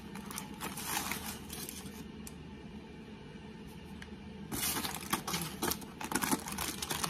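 Dry masa harina being scooped with a measuring cup and poured into a plastic bowl: soft scraping and rustling, busier in the last two or three seconds.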